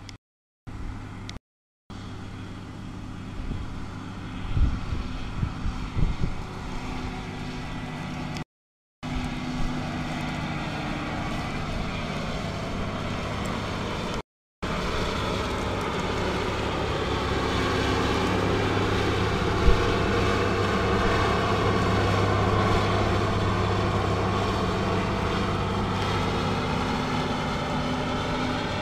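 Bizon Z110 combine harvester's diesel engine running steadily as the machine drives past, growing louder in the second half. A few knocks come about five seconds in, and the sound drops out completely for short moments a few times.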